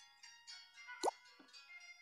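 Background music of light plucked, chiming notes, with one quick falling 'bloop' about halfway through.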